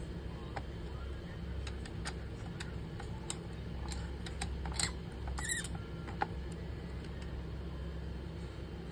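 Scattered small clicks and scrapes, with a couple of louder squeaky scrapes in the middle, as the AMD stock CPU cooler is unscrewed and worked loose from the motherboard, over a steady low hum.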